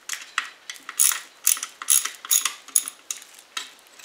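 Socket ratchet wrench clicking in short back-and-forth strokes, about three a second, as the through bolts of a pool pump motor's end bell are snugged up in a crisscross pattern. The clicking stops shortly before the end.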